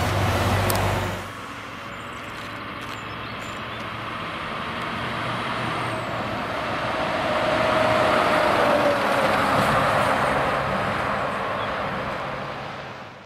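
Heavy truck engine running with a low rumble, cut off about a second in; then another articulated truck passing by, its engine and tyre noise swelling to a peak and fading, with a faint whine that falls in pitch as it goes past.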